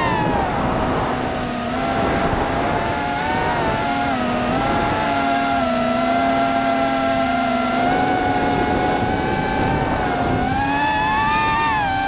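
FPV quadcopter's electric motors and propellers whining, as heard through the onboard camera, the pitch dipping and rising with the throttle; the whine climbs about ten seconds in, then drops back.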